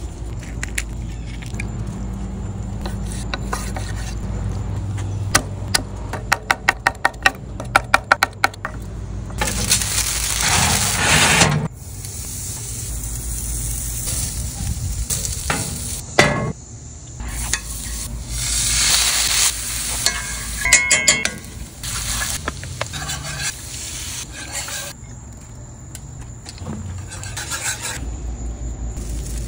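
Close-up cooking sounds: a rapid run of sharp taps early on the way through, food sizzling on a grill grate over live coals, and a wooden spoon scraping and stirring thick cheese sauce in a cast-iron skillet.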